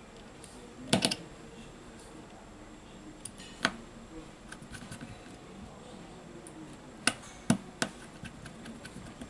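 Small sharp clicks and taps of a precision screwdriver working on the screws in a Samsung Galaxy Note 9's internal frame: one louder click about a second in, another a few seconds later, and three in quick succession around seven to eight seconds in, with fainter ticks between.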